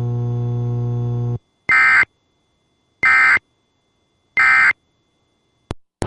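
Steady electrical hum on the broadcast audio that cuts off about a second and a half in, followed by three short digital data bursts about 1.3 seconds apart: the Emergency Alert System end-of-message (SAME EOM) tones that close the alert. A single faint click near the end.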